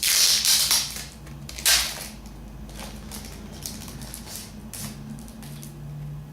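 Packaging of a small box of trading cards being opened and handled, crinkling and rustling. There is a loud burst at the start and another sharp one a little under two seconds in, then quieter rustles.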